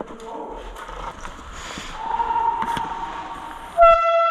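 A loud horn blast begins abruptly about four seconds in, one steady held pitch, after a fainter held tone from about halfway through.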